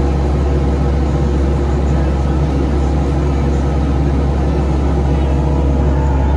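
Bobcat 337 compact excavator's diesel engine running steadily, heard from the operator's cab, with a strong low hum.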